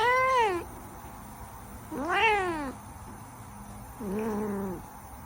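A cat meowing three times, about two seconds apart, each meow rising then falling in pitch; the third is lower and flatter.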